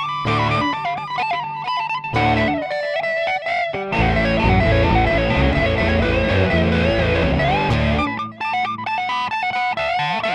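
Instrumental break of a song: a guitar carries a melody line with slides between notes over the backing, which thickens with a heavy low end about four seconds in and thins out again near eight seconds.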